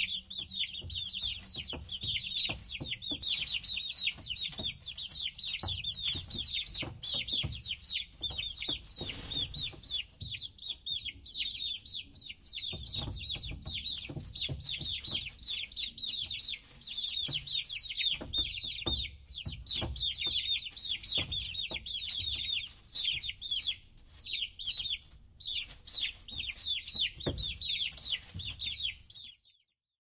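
A brood of chicks peeping nonstop, many short, high, downward-sliding peeps overlapping one another, over a low rumble. It cuts off suddenly just before the end.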